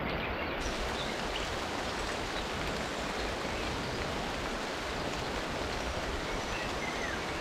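Steady rain falling on a river, an even hiss of rain on the water with the river's flow beneath it.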